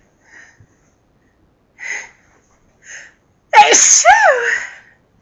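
A woman's forceful sneeze, part of a sneezing fit. A few short, faint breathy sounds lead up to one loud 'achoo' about three and a half seconds in, its voice rising and then falling in pitch.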